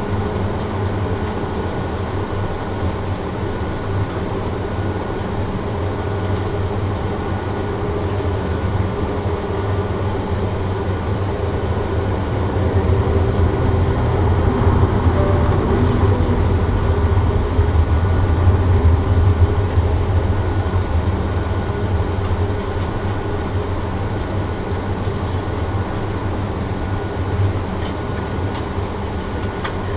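Airbus A350-900's Rolls-Royce Trent XWB engines idling, heard from inside the cabin as a steady low drone, growing louder for several seconds in the middle.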